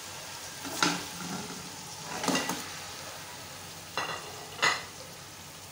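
Hot oil with garlic-ginger paste and whole spices sizzling in an aluminium pot as raw mutton pieces are added and stirred in with a spatula. A steady sizzle runs under four short, louder clatters and surges of sizzling as the meat goes in.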